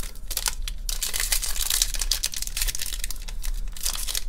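Foil trading-card pack wrapper crinkling and crackling in the hands as it is handled and pulled open at its crimped top seam: a dense run of small irregular crackles.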